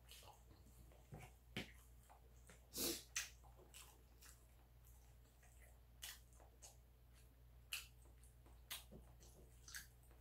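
Quiet eating sounds at close range: scattered short wet clicks and smacks of chewing bibimbap, with a metal spoon knocking in the lunch box. The loudest pair comes about three seconds in.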